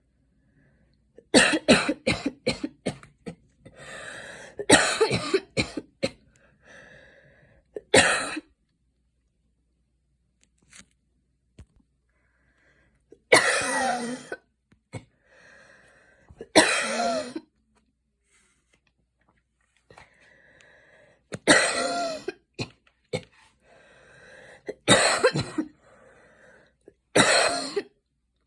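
A woman coughing hard after a run: a fast string of coughs a little over a second in, then shorter bouts of one or two coughs every few seconds, with breaths drawn in between.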